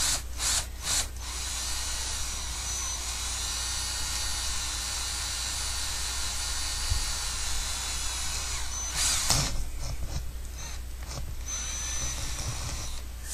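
Power drill boring a hole through a house wall for a satellite cable. It starts with a few short trigger bursts, runs steadily for about eight seconds, then goes in stop-and-start bursts, the loudest just after the long run.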